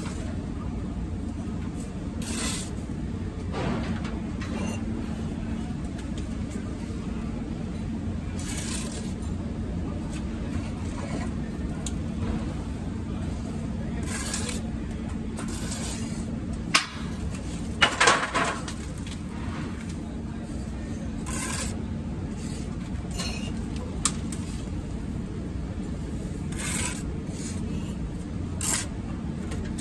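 Bricklaying by hand: a steel trowel scraping and spreading mortar and bricks being pressed into the mortar bed, in short scrapes every few seconds, with a cluster of sharp knocks a little past halfway. A steady low hum underlies it.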